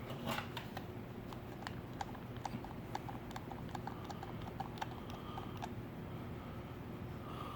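A run of light, quick clicks, about two to three a second, from a ceiling fan's push-button control being pressed over and over to get a fan that didn't respond to switch on. A steady low hum of running ceiling fans lies underneath.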